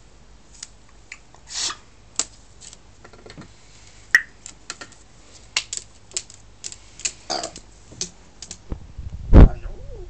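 A Congo African grey parrot clicking and tapping on a window sill: irregular sharp clicks, some in quick runs. Near the end comes a single heavy, low thump, much louder than the clicks.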